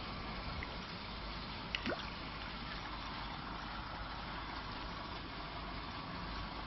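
Water in a goldfish tank splashing and bubbling steadily, with a brief plop about two seconds in.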